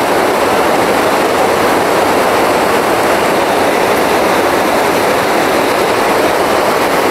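Fast river water rushing steadily over rocks and rapids.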